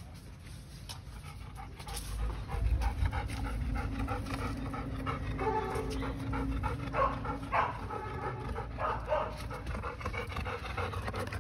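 A dog panting, starting about two seconds in.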